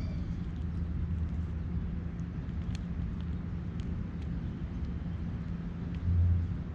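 Steady low engine rumble of a motor vehicle, with a brief louder swell about six seconds in. A few faint, short bird chips sound above it.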